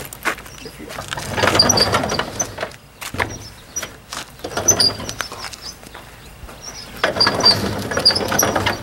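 Old weathered wooden barn door scraping and rattling as it is pulled open by its handle, in three rough bursts with sharp knocks between them.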